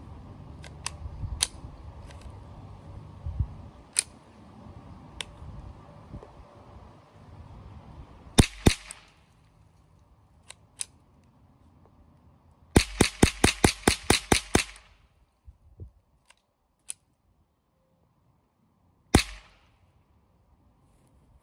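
Marlin Model 60 semi-automatic .22 rifle firing .22 Long Rifle rounds. Two quick shots come partway through, then a rapid string of about ten shots in about two seconds, then one last shot near the end. Fainter clicks and taps fall between the shots.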